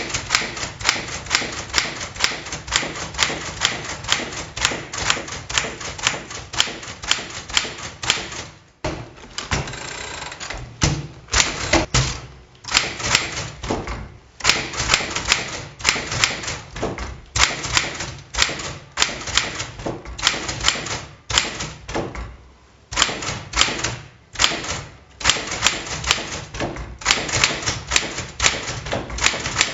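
Smith Corona Sterling manual typewriter being typed on: fast runs of sharp key strikes, broken by a few short pauses.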